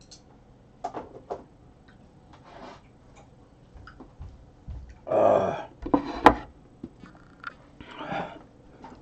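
Scattered knocks and clicks of someone moving about off-camera. A louder short noisy sound comes about five seconds in, with a sharp click just after it. Near the end a plate of food is set down on a wooden board.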